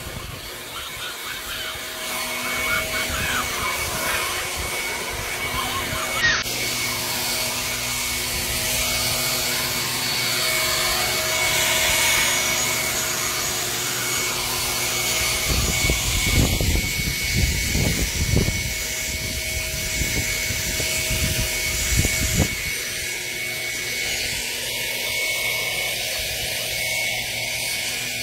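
Corded Ryobi electric leaf blower running steadily, a constant motor whine with rushing air, with a few low rumbles partway through.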